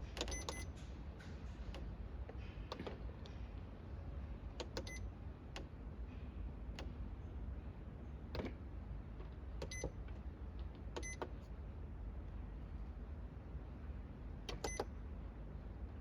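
Electronic control panel of a Liebherr under-bench fridge giving short beeps with clicks as its buttons are pressed, about five times at uneven intervals of a few seconds, with a few softer clicks between, over a steady low hum.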